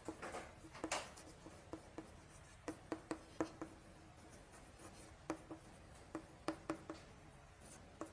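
Writing by hand on a board, heard as a faint series of short, irregular taps and scratches.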